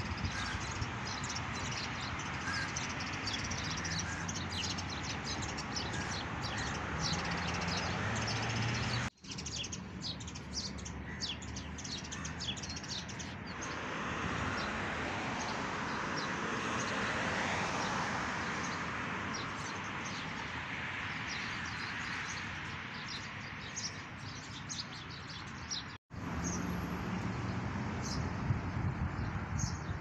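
Many birds chirping and calling in the trees, short high calls coming thick and fast over steady background noise. The sound drops out abruptly twice, about nine seconds in and again near twenty-six seconds.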